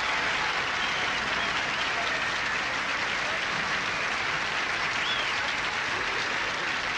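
Banquet audience applauding steadily.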